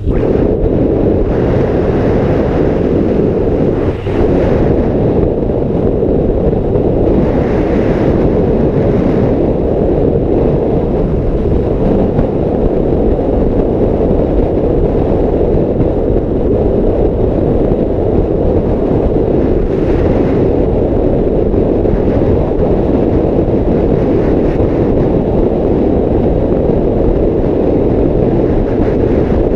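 Steady wind buffeting on the action camera's microphone from a 1986 Yamaha Maxim X inline-four motorcycle riding at road speed, with the bike's engine and road noise mixed into a constant rush.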